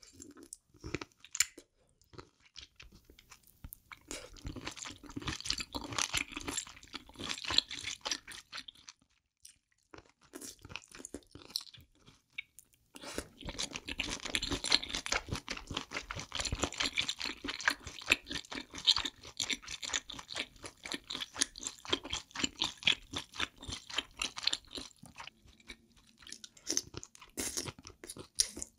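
Chewing of a braised octopus tentacle: dense runs of wet, crunchy mouth sounds, broken by a lull of a few seconds about a third of the way in.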